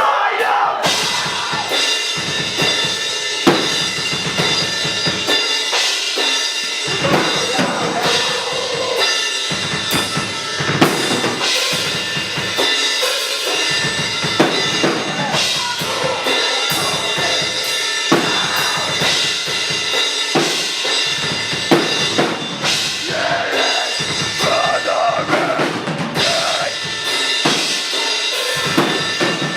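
Metal band playing live: a drum kit with kick drum, snare and cymbals drives a loud, dense wall of band sound throughout.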